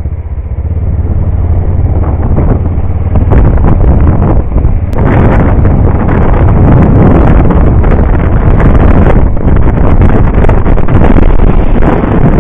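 Motorcycle engine running under way with wind rushing and buffeting over the bike-mounted camera, growing louder over the first three seconds or so as the bike gathers speed.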